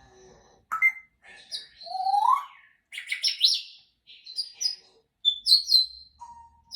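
African grey parrot making a string of whistles and chirps with short gaps between them, including a rising whistle about two seconds in.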